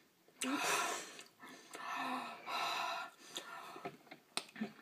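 A child's breathy gasps and forced exhales, a few in a row with a trace of voice, a reaction to the burn of cayenne pepper in the mouth and throat. A few sharp clicks follow near the end.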